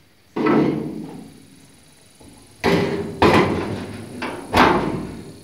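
Steel hood of a 1966 Ford Bronco being lowered and shut onto its stock latch: about four sharp metal clunks a second or so apart, as the latch pin is checked for alignment.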